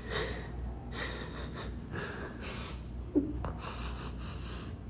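A cat's laboured breathing close to the microphone, quick and hard at about two breaths a second, with one brief voiced sound a little after three seconds in. It is the heavy breathing of a sick cat in pain.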